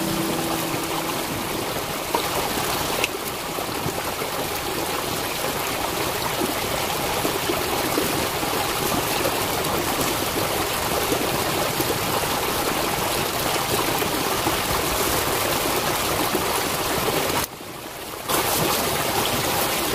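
Steady rush of a flowing stream, which drops out briefly for under a second near the end.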